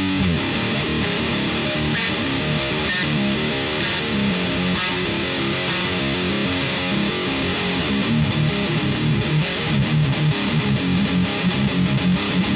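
Distorted electric guitar riff played through a thiSHEAvyearth Grim pedal, quick low notes, with a pulsing, chugging rhythm in the last few seconds.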